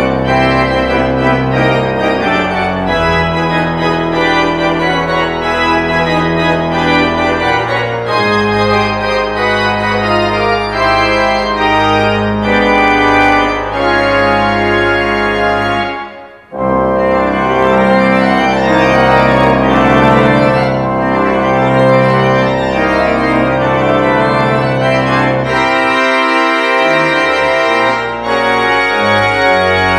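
Church organ playing a piece in sustained full chords over a deep pedal bass; the music breaks off for a moment about halfway through, then goes on.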